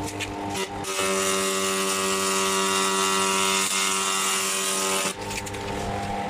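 Laser rust-cleaning head firing on metal: a loud, even buzz with a bright high hiss that starts about a second in and cuts off about five seconds in, over the steady hum of the machine.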